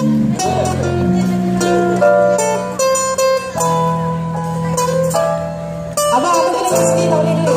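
Live busker band playing a song's intro through a small PA, with acoustic guitar and keyboard; a woman's singing comes in about six seconds in.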